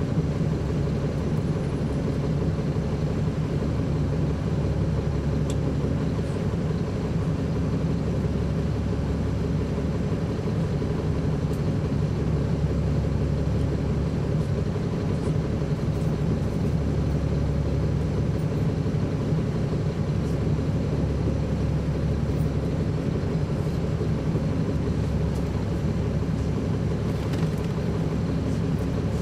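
Caterpillar C13 ACERT diesel engine of a NABI 40-foot transit bus heard from on board, running with a steady, unchanging engine note.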